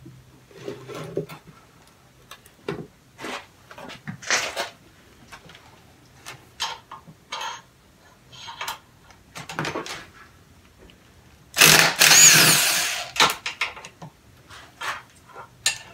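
Cordless drill/driver running in one burst of about a second and a half near the end, its motor whine wavering in pitch as it backs out a cylinder bolt on a compressed air engine. Before it come scattered knocks and clatters of parts and a wooden block being handled.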